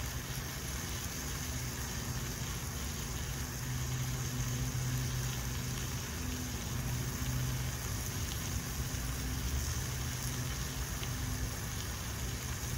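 A steady low mechanical hum, like a motor or fan running, swelling and easing slightly in loudness.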